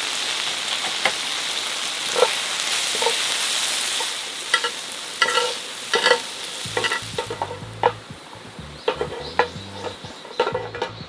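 Food sizzling in a frying pan while a utensil stirs and scrapes it. The sizzle fades about four seconds in, leaving scattered clicks and taps of the utensil against the pan.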